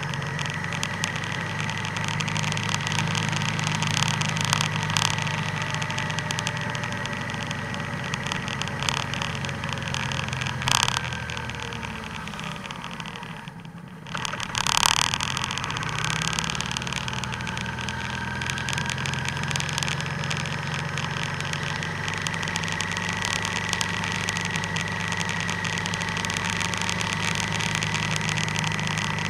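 Vehicle engine and road noise heard from the vehicle while driving at about 20 mph, with a steady high whine. The engine eases off and goes quieter as the vehicle slows to about 10 mph, then picks up again as it accelerates. There is a sharp knock about 11 seconds in and a louder thump about 15 seconds in.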